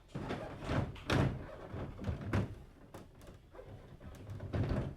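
Several irregular knocks and thuds, the loudest about a second in, again near two seconds and near the end.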